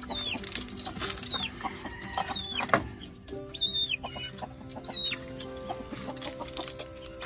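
Chickens calling: short, high peeps that fall in pitch, about one a second. Faint music plays in the background.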